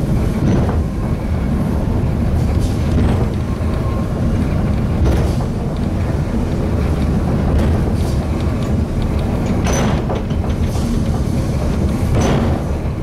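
Eizan Cable Line funicular car running on its rails: a steady low rumble with irregular clicks and knocks every second or few.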